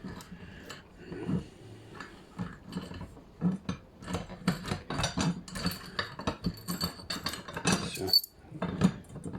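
Irregular metallic clinks and clicks from a key-operated gate lock and its metal fittings being handled.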